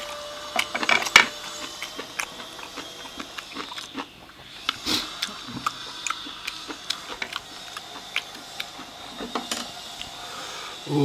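Close-miked eating sounds: many small wet clicks of chewing and lip-smacking, with chopsticks and a large buffalo bone knocking against a plate.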